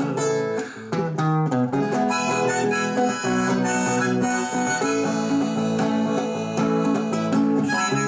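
Harmonica played in a neck rack over a strummed acoustic guitar: an instrumental break in the song, the harmonica holding sustained melody notes above the guitar chords.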